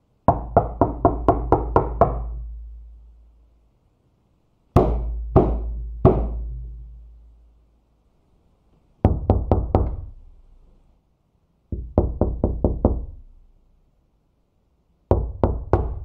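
Knocking on a door in five separate bouts: a quick run of about eight knocks, three slow heavy knocks, then runs of about five, six and four knocks. Each bout leaves a deep ring that dies away over a second or two.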